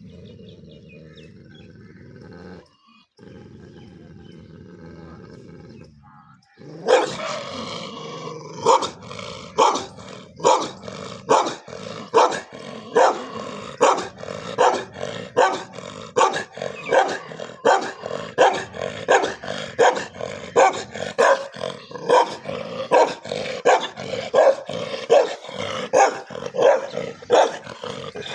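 Dog growling low for the first several seconds, then breaking into loud, steady barking, roughly one bark every three-quarters of a second, in a squabble between pet dogs.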